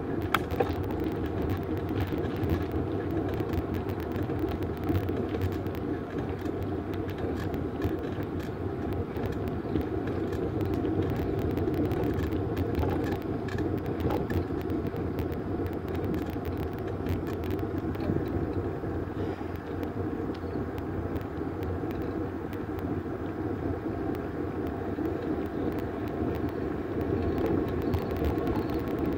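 Steady rolling rumble of a road bike riding along an asphalt path: tyre and road vibration carried through the handlebar mount, with small rattles and ticks throughout.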